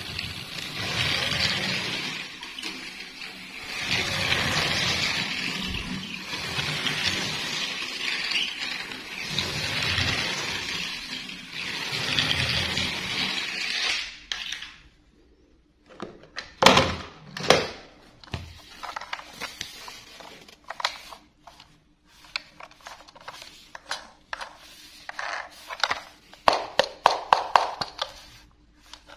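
Clicks and knocks of a plastic Thomas the Tank Engine toy train being handled and worked by hand. These follow a rushing, hiss-like sound that swells and fades several times and cuts off suddenly about halfway through.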